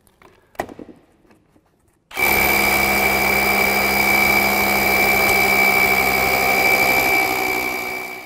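DeWalt DCH274 18-volt brushless SDS rotary hammer drilling into concrete. After a small click, the tool starts about two seconds in and runs steadily under load with a high, even whine, easing off just before the end.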